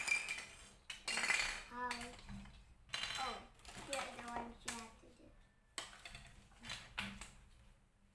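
Hard plastic toy cradle parts being handled, clattering and knocking together on a tile floor in a series of short bursts.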